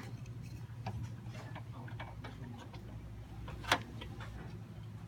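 Scattered light clicks and taps of computer parts being handled during PC assembly, with one sharper click about three and a half seconds in, over a steady low hum.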